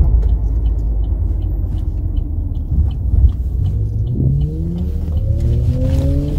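Car engine and road rumble heard from inside the cabin while driving, with a faint regular ticking. Over the last two seconds the engine's pitch rises steadily as the car accelerates.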